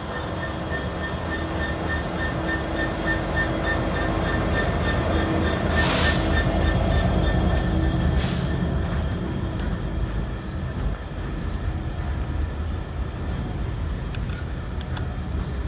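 GB Railfreight Class 66 diesel locomotive, with its two-stroke V12 engine, passing at low speed, followed by its loaded box wagons rumbling over the rails. The sound grows louder toward the middle, and there are two short hissing bursts about six and eight seconds in.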